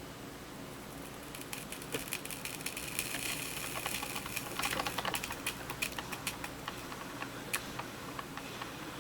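Drip coffee maker heating up after being switched on: irregular ticking and crackling that thickens with a faint hiss in the middle, then thins to scattered ticks as the water begins to heat and move.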